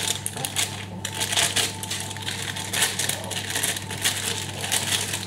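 Cake-mix packet crackling as the dry mix is shaken and tipped out into a mixing bowl: a dense run of irregular crackles.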